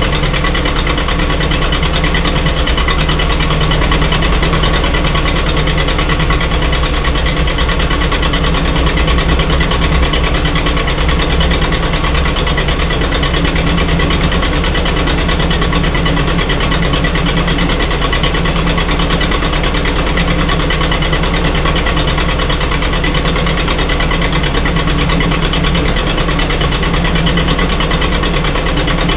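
Continental F-163 four-cylinder flathead gasoline engine of a Lincoln SA-200 welder running steadily through its muffler. Freshly tuned, it runs evenly with no missing on any cylinder.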